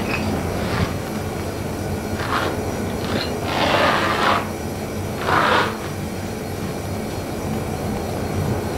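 Sofa upholstery being torn apart: a short rip about two seconds in, then two longer tears in the middle, over a steady low rumble.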